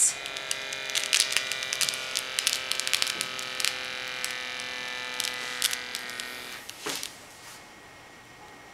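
Omron HEM-711 automatic blood pressure monitor's small air pump buzzing steadily as it inflates the arm cuff, with scattered clicks and rattles. The pump stops about six and a half seconds in, leaving a faint steady hiss.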